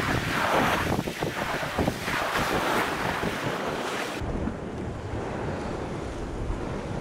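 Sea waves breaking and washing over rocks, with wind buffeting the microphone; the wash surges twice. About four seconds in the hissing wash cuts off suddenly, leaving a low wind rumble.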